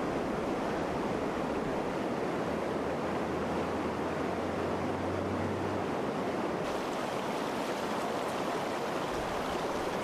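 Steady rushing of flowing floodwater, with a low hum underneath for a few seconds in the middle.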